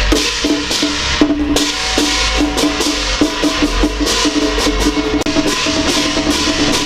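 Chinese ritual percussion music: rapid wood-block and drum strokes with bright crashes, over a melody of short repeated notes and a low rumble.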